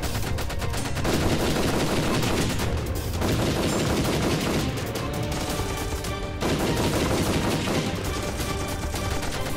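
Rapid, continuous gunfire, shot after shot in quick runs, with music underneath.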